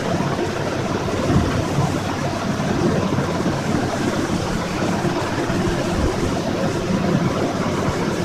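Steady, fairly loud rumbling background noise with no distinct events.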